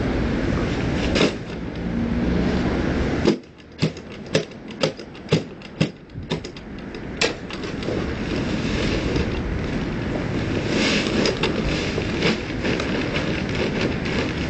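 Steady rushing noise, broken about three seconds in by a quieter spell with a run of five sharp knocks, about two a second.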